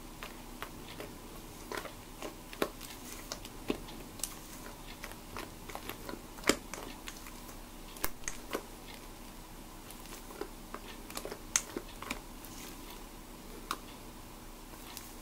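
Silicone spatula folding a thick chocolate cream-cheese batter in a stainless steel bowl: irregular wet smacks and clicks as it scrapes and taps the bowl, one or two a second.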